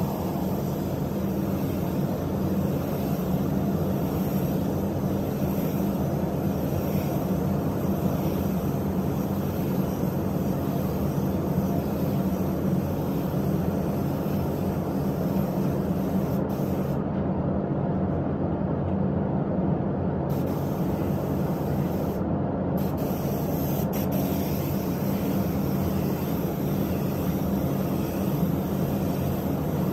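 Steady drone of a paint spray booth's air handling while a gravity-feed spray gun sprays car paint: a low hum with an even hiss over it, running without a break.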